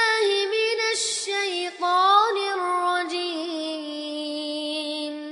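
A single high, melodious voice chanting long held notes in Quranic recitation style, with a quick breath about a second in and a rising slide into a long sustained note.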